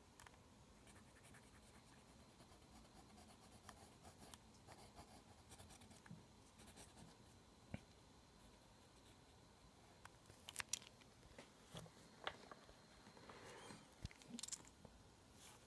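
Faint scratching of a mechanical pencil sketching on lined notebook paper, with a few sharp clicks and taps in the second half.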